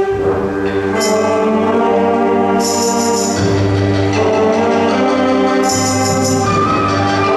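Middle-school symphonic band playing, brass and woodwinds holding full sustained chords that change every second or so, with a bright high shimmer entering a few times.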